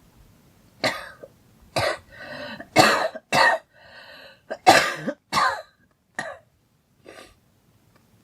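A girl coughing in a run of about nine coughs, with drawn-in breaths between some of them. The coughs thin out into two weaker single coughs near the end.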